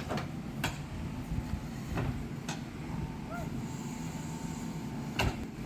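JCB backhoe loader's engine running steadily, with a few sharp knocks spread through.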